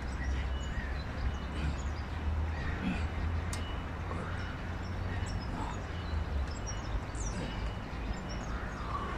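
Birds calling: scattered short calls over a steady low rumble.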